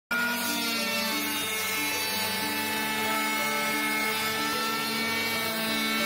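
Electric orbital sander running steadily while sanding a wooden board, a steady motor whine over noise.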